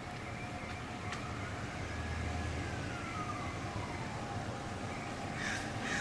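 Low rumble of road traffic, with a faint whine that rises and then slowly falls over about three seconds as a vehicle goes by.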